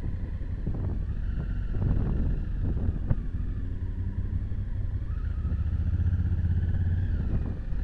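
Honda Africa Twin CRF1000's parallel-twin engine running steadily while the motorcycle is under way, with a few sharp knocks in the first half.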